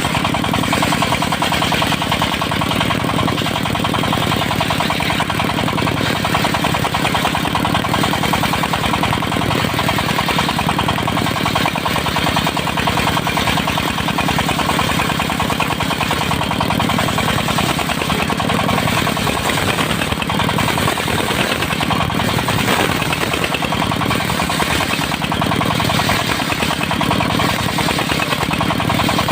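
Engine of a portable circular sawmill running steadily with a rapid, even pulsing beat.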